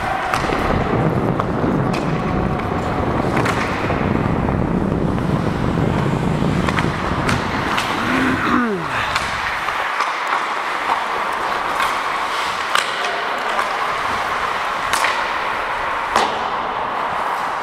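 Ice hockey skate blades gliding and scraping on the ice during play, with scattered sharp clacks of sticks and puck.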